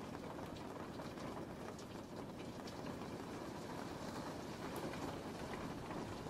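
Steady rain: an even hiss with a low rumble underneath and scattered sharper drop ticks, with no change in strength.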